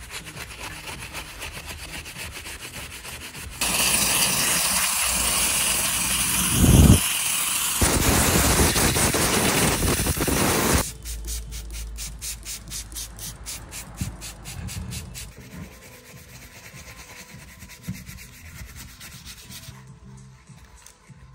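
A stiff detailing brush scrubs a foam-covered plastic car tail light housing in quick rhythmic strokes. From about four seconds in, a compressed-air blow gun hisses loudly for about seven seconds, blowing water off the housing, with a short break in the middle. After it stops, quieter rubbing strokes follow and fade out.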